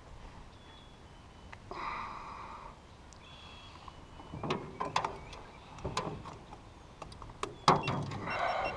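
Plastic clicks and knocks from a GoPro action camera being handled and its buttons pressed, with a sharp click near the end the loudest. There are two brief tones, one about two seconds in and one near the end.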